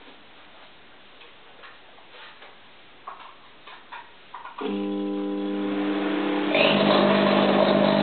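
Faint ticking, then about halfway through a microwave oven powers up with a loud, steady electrical hum from its transformer and magnetron. About two seconds later a louder, harsher buzz joins the hum: an RF arc inside the oven's cavity, the fault the oven was reported to have.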